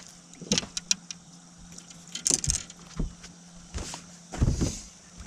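Angler's rod-and-reel and boat handling noises while a bass is reeled in: scattered clicks and knocks, with louder short swishing bursts about two and four and a half seconds in, over a steady low hum.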